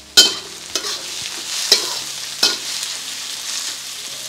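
Metal spatula striking and scraping a steel wok while stir-frying diced red bell pepper and onion in hot oil, over a steady sizzle. The first clank, about a quarter second in, is the loudest, and a few lighter knocks follow.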